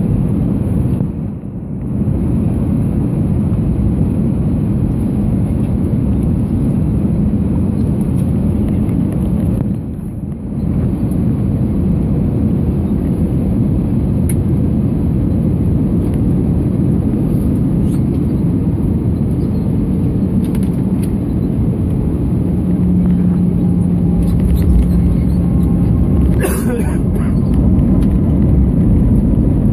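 Airbus A319 cabin noise on short final: a steady rumble of the engines and airflow past the fuselage, with two brief dips in level about one and a half and ten seconds in. Near the end the rumble grows heavier and a sharp thump comes as the main wheels touch the runway, followed by rolling runway rumble with the ground spoilers up.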